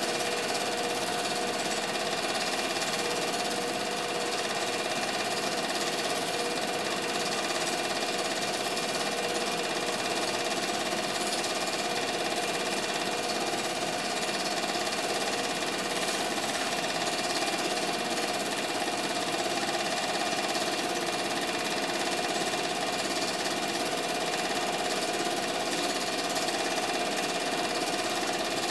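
Steady whirring and rapid clatter of a running 8mm film projector mechanism, unchanging throughout.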